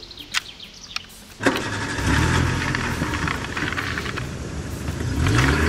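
A few light clicks as the toy limousine's doors are snapped shut. About a second and a half in, a car engine sound starts suddenly and runs on loudly, revving up near the end.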